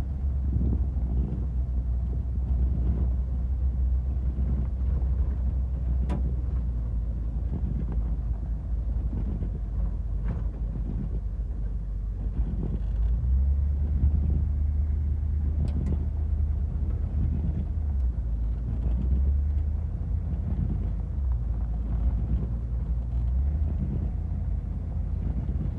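HMMWV M998 driving along a dirt road at a steady pace: a low, steady rumble of its diesel engine and drivetrain from inside the open cab. The rumble grows louder about halfway through for several seconds, with a couple of faint clicks along the way.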